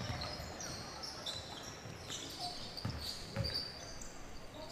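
A ball thumping on a hard indoor court a few times during play, with sneakers squeaking sharply and repeatedly on the floor.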